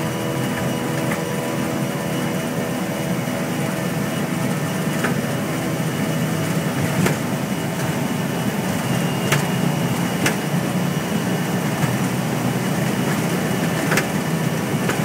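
Steady engine hum and rushing noise heard inside an airliner cockpit on a rain-soaked runway, with windscreen wipers sweeping through heavy rain. A few sharp ticks come through around the middle and again near the end.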